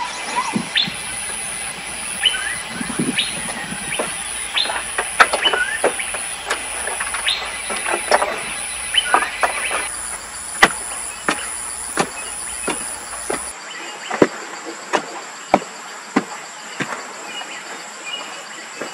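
A wooden pole knocking sharply and evenly, about one stroke every two-thirds of a second, as earth is tamped around a freshly set wooden post. Over the first half, insects buzz steadily and birds chirp.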